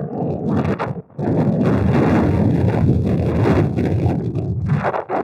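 Wind buffeting the microphone: a loud, low rumble that drops out briefly about a second in.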